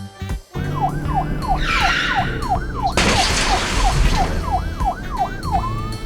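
Police siren sound going in quick falling sweeps, about three a second, over background music, turning into a rising tone near the end. A loud burst of hissing noise cuts in about three seconds in.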